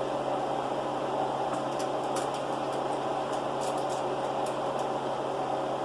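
Steady whirring hum of a running indoor appliance, with a few faint light clicks in the middle.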